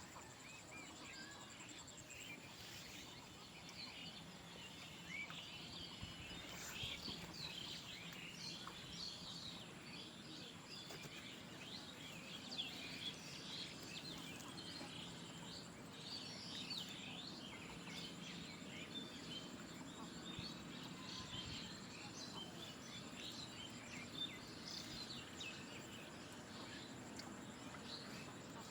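Outdoor ambience of many small birds chirping in quick, overlapping calls, over a steady high insect buzz.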